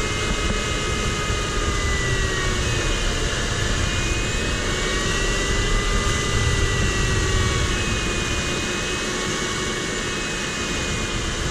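Steady rush of airflow in the cockpit of an ultralight sailplane in gliding flight, with faint thin tones slowly drifting up and down in pitch.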